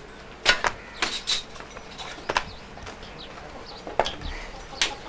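A long-handled hoe knocking and scraping on a hard dirt floor: several sharp knocks at uneven intervals.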